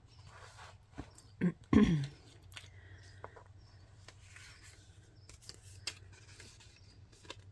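Light paper rustling and small taps as paper and cardstock journal pages and a paper envelope are handled, with a short louder sound about one and a half to two seconds in.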